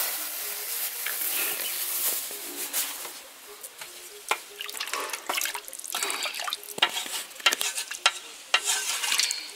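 Wooden spoon stirring a simmering pot of liver soup. A steady hiss from the pot for the first few seconds, then repeated knocks and scrapes of the spoon against the metal pot.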